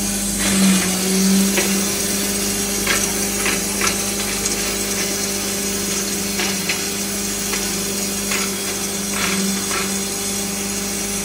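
Electric corn (bhutta) grinder machine running with a steady motor hum, with irregular sharp knocks and crunches as chopped corn cob pieces are fed into its hopper.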